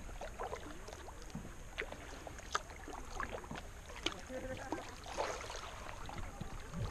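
Kayak paddle working calm river water: small splashes and drips from the blades, with scattered sharp ticks, the clearest about two, two and a half and four seconds in.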